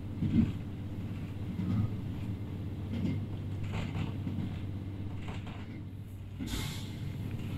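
Interior running noise of a JR Hokkaido H100 'DECMO' diesel-electric railcar at speed: a steady low rumble with scattered knocks and rattles, the loudest about six and a half seconds in.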